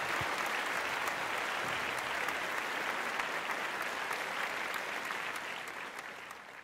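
Large crowd applauding steadily, fading out near the end.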